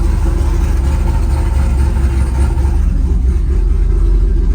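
A vehicle engine running steadily, deep and even, with no rise or fall in pitch.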